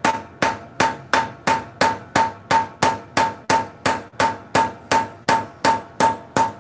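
Hammer striking a wheel stud in an Isuzu truck's wheel hub, steady blows about three a second, each with a short metallic ring. The old stud is being driven out of the hub so that it can be replaced.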